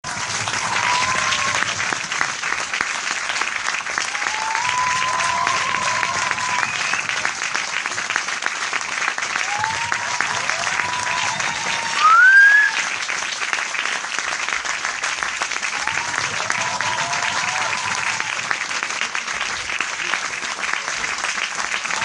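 A large audience applauding steadily, dense clapping with scattered cheering voices. A loud rising cry stands out about halfway through.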